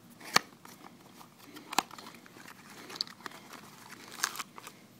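Small cardboard knife box being opened by hand: the end flap pulled and torn open with crinkling paper, punctuated by a few sharp snaps, the loudest about half a second in and just before two seconds.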